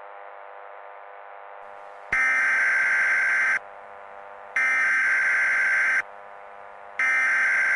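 Emergency Alert System SAME header: three harsh, buzzing bursts of digital data tones, each about a second and a half long with about a second between them, the first starting about two seconds in. The bursts are the coded header that opens an EAS alert, and they stand out over a faint steady hum.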